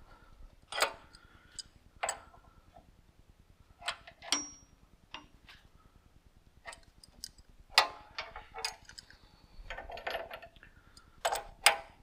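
Irregular knocks and metallic clinks of tools and parts being handled: about a dozen sharp strikes spread unevenly, one with a short ringing tone about four seconds in.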